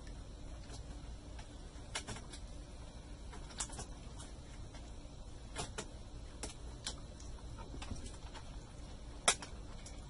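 Scattered small plastic clicks and taps as a laptop keyboard is pressed and worked into its frame, with a sharper snap about nine seconds in.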